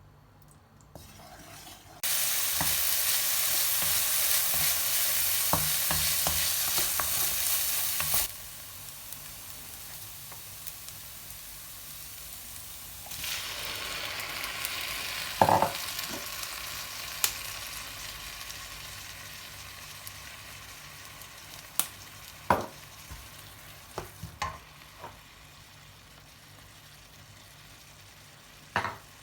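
Food frying in a pan. A loud sizzle starts suddenly about two seconds in and drops sharply some six seconds later. A quieter sizzle carries on, swelling again around the middle, with a few short knocks of a utensil against the pan.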